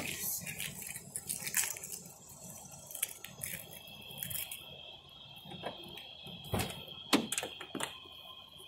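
Handling noise from a hand-held phone: scrapes, rubs and clicks as it is carried, with keys jangling and a car door being pulled open near the end. A faint steady high whine comes in after about three seconds.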